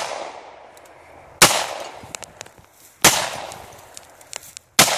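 Handgun shots fired three times, about a second and a half apart, each sharp report followed by a fading echo.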